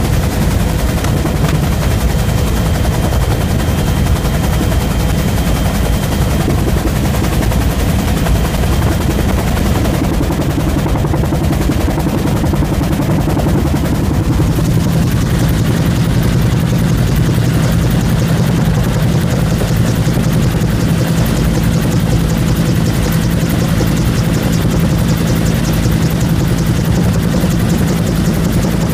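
Bell UH-1 Huey helicopter in flight, heard from inside the cabin: the steady, loud noise of its turbine engine with the rapid, even beat of its two-bladed main rotor.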